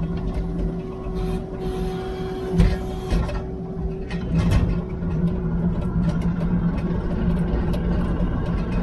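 Diesel engine of New Holland heavy equipment running steadily under work, with scattered knocks and clunks. A sharp, loud knock comes about two and a half seconds in, and a high hiss lasts about two seconds near the start.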